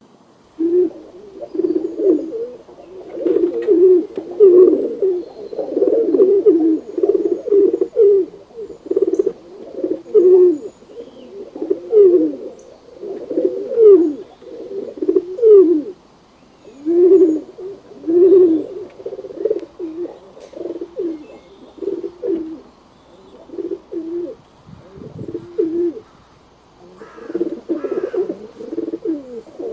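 Pigeons cooing: a long run of low, repeated coos, several birds overlapping, thinning out for a while in the second half and building again near the end.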